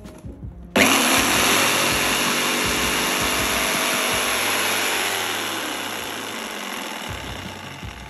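Okatz JS100-QL 750 W corded jigsaw switched on about a second in and running with no load, nothing being cut. The loud motor and blade sound holds steady for several seconds, then gradually gets quieter over the last few seconds.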